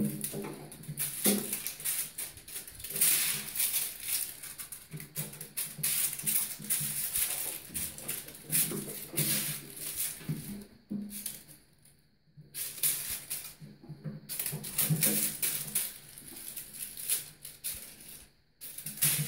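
Crinkle ball crackling and rattling as kittens bat it around a bathtub. It comes in long runs with a few short pauses.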